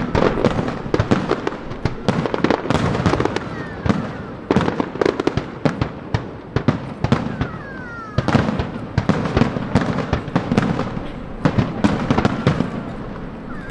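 Aerial fireworks bursting in quick, dense volleys of bangs and crackles, with a few short falling whistles, easing off near the end.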